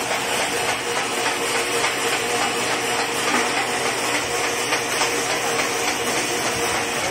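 Soft-broom sewing machine running: a steady mechanical whir with a hiss and a faint constant hum.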